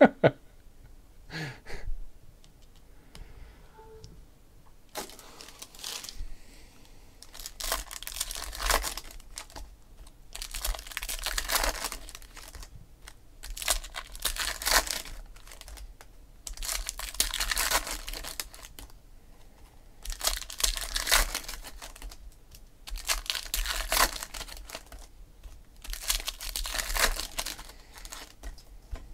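Foil wrappers of baseball trading-card packs being torn open and crinkled, one pack after another. The bursts of crinkling start several seconds in and come about every three seconds.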